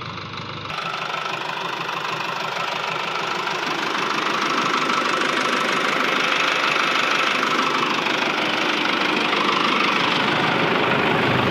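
Sonalika DI 60 tractor's diesel engine running, heard close up, growing steadily louder.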